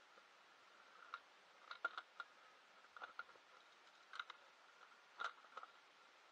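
Near silence broken by about a dozen faint, sharp clicks and taps at irregular intervals, over a faint steady high hum.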